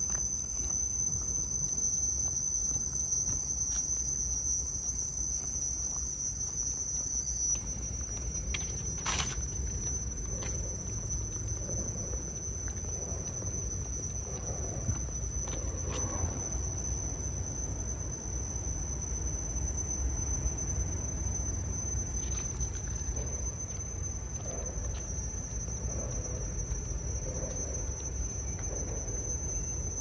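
Insects keep up a steady high-pitched drone, with a constant low rumble underneath and a few faint clicks.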